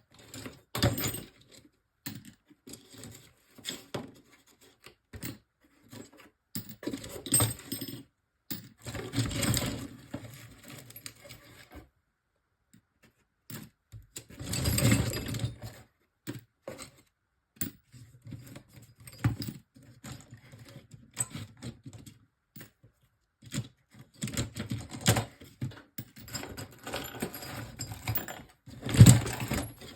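Pieces of scrap copper and brass clinking and clattering against each other as they are picked out of a box and tossed onto a pile: irregular metallic clicks and knocks with a few louder clatters.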